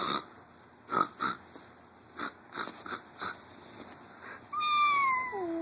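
A person's voice making silly animal-like noises: a string of short breathy puffs, then near the end a long squeal that falls in pitch.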